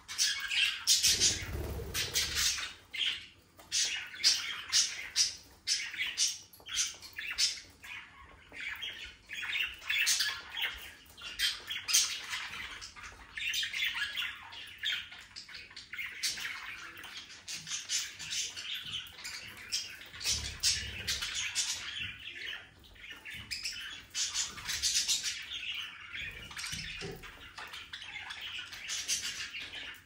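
Flock of budgerigars chattering continuously with rapid warbling chirps and squawks, along with a few low thumps about a second in and again later.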